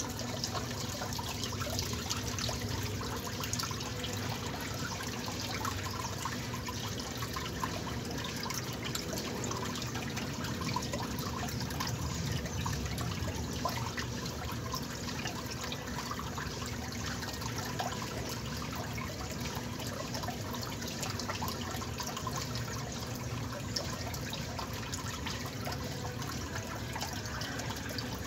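Top-loading agitator washing machine running a wash: water and suds sloshing around the load over a steady low motor hum.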